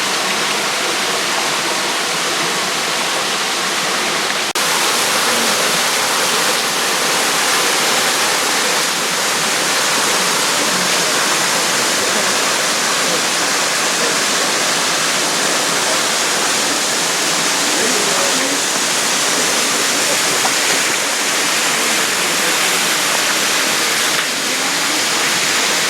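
Steady rush of water falling and splashing at Stephens Falls, a small spring-fed waterfall, growing slightly louder about four and a half seconds in.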